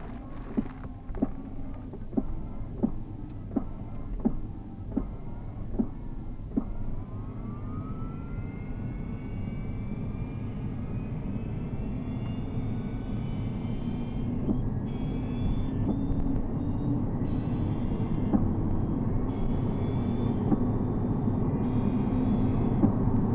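Tesla Model S 85 drive unit heard from inside the cabin as the car pulls away and speeds up: a whine that climbs steadily in pitch over a growing rumble, with regular sharp ticks about every 0.7 s during the first seven seconds. It is the abnormal drive-unit noise the owner calls a "circle saw".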